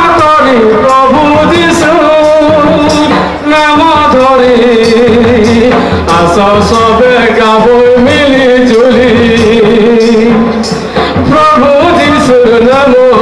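Loud live folk song amplified through a PA: a man sings into a microphone over a barrel hand drum and jingling percussion, keeping a steady beat.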